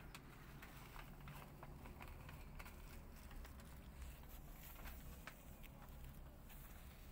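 Near silence: a low steady hum with faint scattered clicks.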